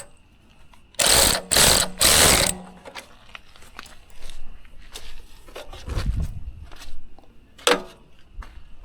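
Three quick, loud ratcheting strokes about a second in, as a sawmill's jack stand is adjusted to level the bed, followed by scattered lighter metal clicks and knocks.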